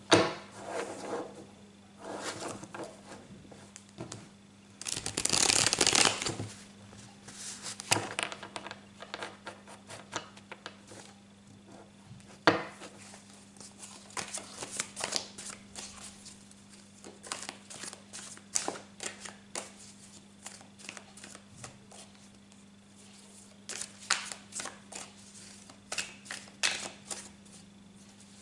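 A deck of tarot cards being shuffled and handled, in bursts of soft flicking and slapping of card on card. The longest and loudest burst comes about five seconds in, with another run near the end. A faint steady low hum lies underneath.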